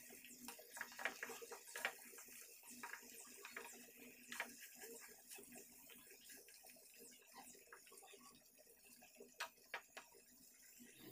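Very quiet, scattered ticks and light scrapes of a wooden spatula stirring a thick ground masala paste frying in oil in a nonstick kadhai. Two sharper clicks come near the end.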